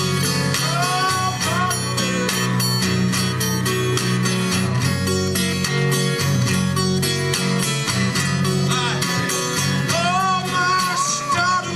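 Solo guitar playing a driving country-blues instrumental break, with a steady thumping bass line under the picked notes.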